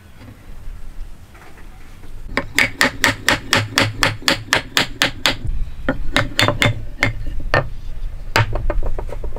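Rapid hammer taps on timber, about five a second, knocking a wooden post-and-beam joint together. After a short pause comes a slower run of blows, then one hard strike near the end.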